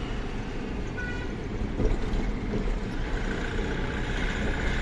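Cab noise of a Mahindra Maximo mini truck's two-cylinder diesel engine running under way, with road noise. A faint steady high tone comes in about three seconds in.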